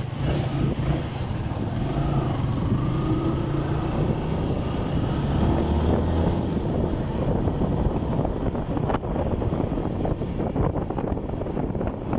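Motorcycle engine running under way, its pitch rising as it pulls away in the first few seconds and then holding steady, with wind rushing and buffeting the microphone.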